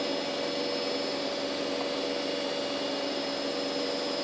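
Steady background hum and hiss with a few constant tones running through it, unchanging throughout; nothing else stands out.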